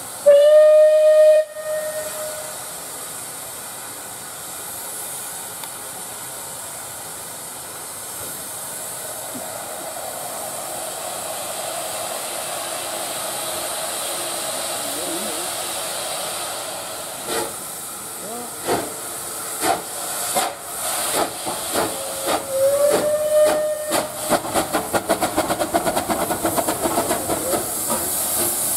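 A rebuilt Bulleid West Country class steam locomotive gives a short, loud whistle, then steam hisses steadily as it stands. About 17 seconds in it starts away, its exhaust beats slow at first and quickening, with a second, shorter whistle about 23 seconds in.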